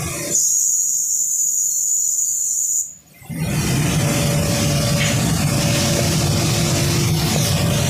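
Factory noise: a loud, steady high hiss that stops about three seconds in, giving way to a broad rushing noise with a low rumble.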